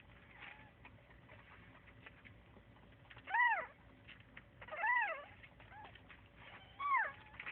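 A cat meowing three times, each a short call that rises and falls in pitch, about one and a half seconds apart.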